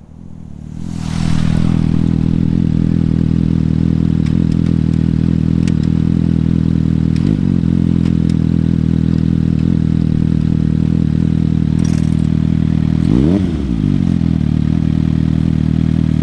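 2020 Suzuki GSX-S750's inline-four through a Yoshimura AT2 slip-on exhaust, coming in close over the first second or so and then idling steadily. There is a small throttle blip about seven seconds in and a quick rev that rises and falls about thirteen seconds in.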